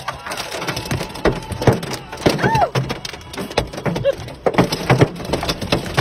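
Hailstones pelting a car's roof and windshield, heard from inside the cabin: a dense, irregular clatter of hard hits.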